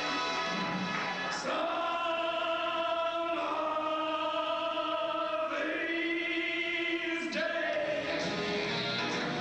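A slow vocal song with musical backing: a voice holding long notes, each about two seconds, moving to a new note every couple of seconds.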